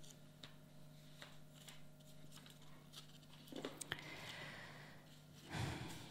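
Book pages being handled and turned close to the microphone: faint paper rustles and small clicks, with louder rustles about three and a half and five and a half seconds in, over a steady low hum.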